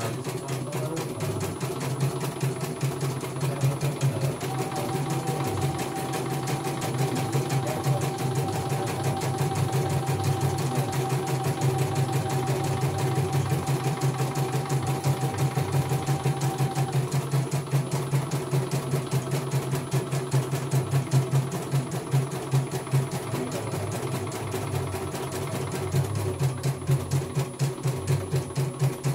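CNY E900 computerized embroidery machine stitching, its needle going up and down in a rapid, even rhythm as the hoop moves. It is running a test design after being repaired from a total failure. A faint steady whine joins from about four seconds in until past halfway.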